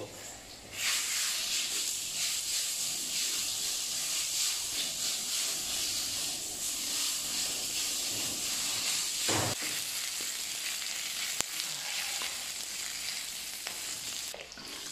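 Slices of pork fat sizzling in a hot iron wok as their lard renders out, stirred with a wooden spatula. The sizzle starts about a second in and runs steadily, with one brief knock about nine seconds in.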